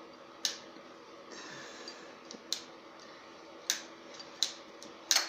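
Sharp metallic clicks and taps from the parts of a lathe's belt variator being handled, about five at irregular intervals, the last a quick double near the end.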